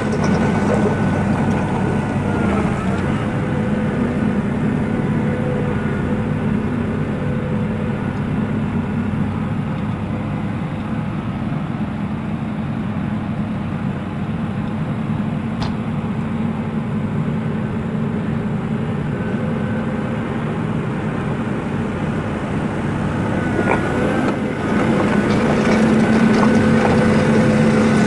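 A Kershaw Skytrim 75XT tracked tree trimmer running on its Caterpillar 4.4 L diesel as it drives on its tracks. The engine's steady drone fades as the machine moves off, then grows louder again in the last few seconds as it comes back close.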